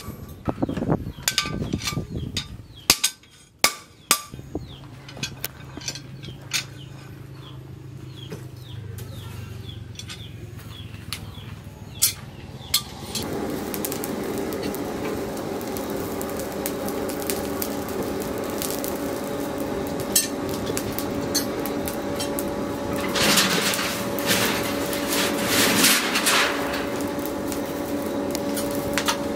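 Steel tongs and tool pieces clinking and knocking together as they are handled. About 13 seconds in, a coal forge's blower starts a steady hum, with a louder rush of noise near the end as the fire is worked.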